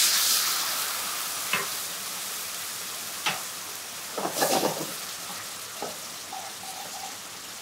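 White wine sizzling in a hot frying pan with seared pork medallions and prunes. A loud hiss as the wine hits the pan dies down into steady bubbling as it reduces, with a few light clicks along the way.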